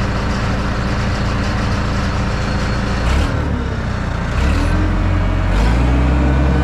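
Gehl 6625 skid steer loader running while working. Its engine note shifts about three seconds in and again about four and a half seconds in, then grows louder near the end.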